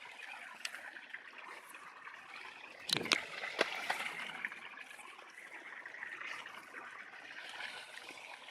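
Water trickling steadily at the pond's edge, with a brief burst of splashing and clicks about three seconds in.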